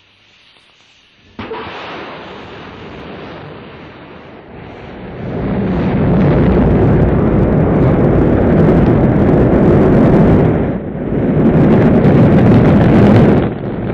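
Rocket launch roar: a sudden ignition about a second in, a rumble that swells about five seconds in into a loud, steady, deep roar, dipping briefly twice near the end.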